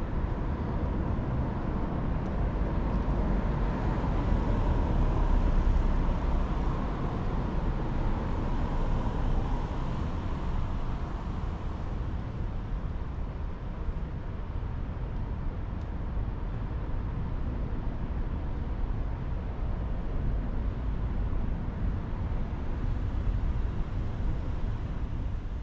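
Steady city traffic noise with a low rumble, swelling about five seconds in as a vehicle passes.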